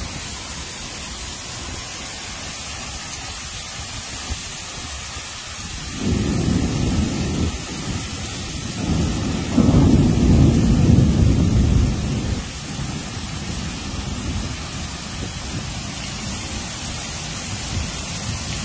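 Heavy tropical downpour hissing steadily, with thunder rumbling twice: a short low roll about six seconds in, then a longer, louder one for about three seconds.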